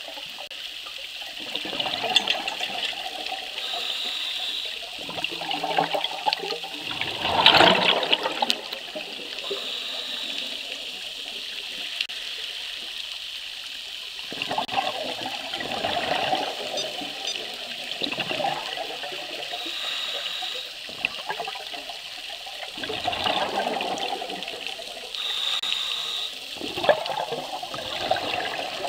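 A scuba diver breathing through a regulator underwater: short hissing inhalations and bursts of bubbling exhaled air every several seconds, the loudest bubble burst about seven seconds in.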